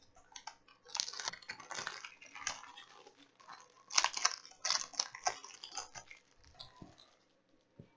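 Blu-ray case and its cardboard slipcover being handled: irregular rustling and scraping with small clicks, loudest about a second in and again at about four and five seconds.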